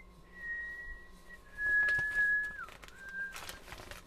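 A man whistling a slow tune: three long held notes and a short one, each a little lower than the last, the third sliding down at its end. Newspaper pages rustle briefly twice.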